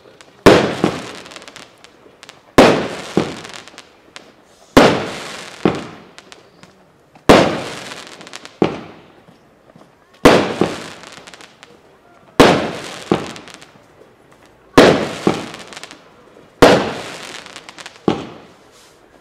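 Aerial fireworks bursting overhead: eight loud bangs about two to three seconds apart, each followed by a few smaller cracks and a tail that fades away.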